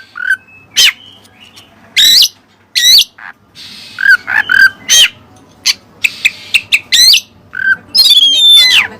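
Oriental magpie-robin (kacer) singing: loud, sharp whistled notes that sweep up and down, broken by short pauses. Some lower phrases are repeated two or three times, and a fast, dense run of notes comes near the end. This is song that takes in mimicked cililin material.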